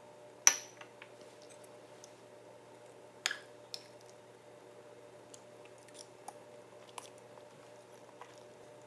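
A loud ringing clink of a drinking glass and tableware on a stone countertop about half a second in, then a second clink and lighter taps and scrapes of a metal fork against a ceramic plate as food is cut.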